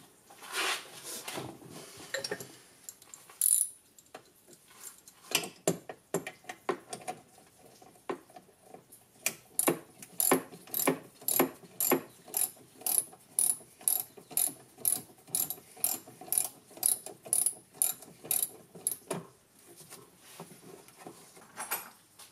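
Ratchet wrench clicking as its pawl slips on the back-strokes while a small nut or bolt holding a golf cart's forward/reverse switch is run down: a few scattered clicks and handling knocks, then a steady run of about two to three clicks a second for some ten seconds, stopping near the end.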